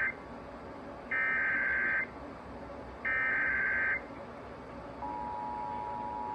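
Emergency Alert System SAME header for a flash flood warning: one burst of digital data tones is just ending, then two more identical bursts follow about a second apart, each just under a second long. About five seconds in, the steady two-tone EAS attention signal begins.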